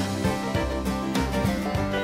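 Upbeat country-style background music with plucked strings and a steady beat.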